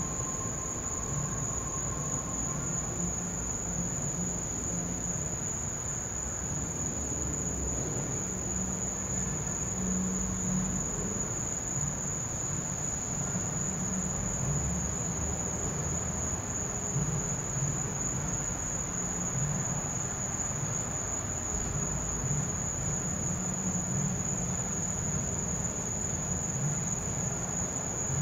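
Night chorus of crickets: a steady high-pitched trill that does not let up, over a low, uneven rumble.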